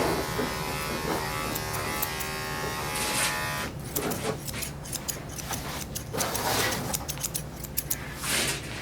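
Electric dog-grooming clippers buzzing steadily. From about three and a half seconds in, there is a run of quick, sharp snipping clicks.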